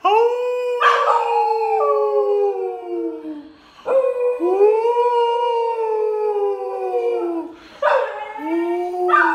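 A small dog howling along with a man who sings long, drawn-out notes, in three long phrases that each slide slowly down in pitch.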